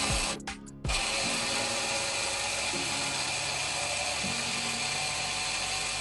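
Electric stick-blender motor driving its chopper attachment, grinding rolled oats into flour. It gives a short pulse at the start, then runs steadily from about a second in.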